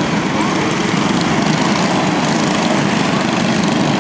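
Several small four-stroke quarter-midget racing engines running together, a steady drone with no breaks.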